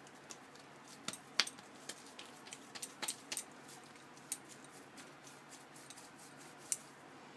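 Scattered light clinks and taps of kitchen utensils against dishes while ghee is worked onto samosa dough, with a few louder clinks about a second and a half in, three seconds in and near the end.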